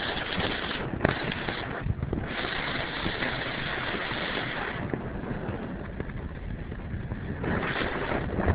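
A vehicle driving through deep floodwater: a steady low rumble with loud rushing and splashing of water that swells and fades several times.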